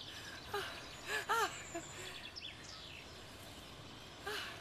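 Outdoor garden ambience with a steady background hiss and birds chirping: two short rising-and-falling calls about a second in, then a few quick descending chirps.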